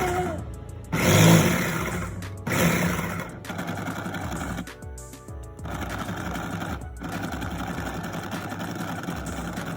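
A small electric motor running steadily, briefly dropping away about five seconds in, over background music.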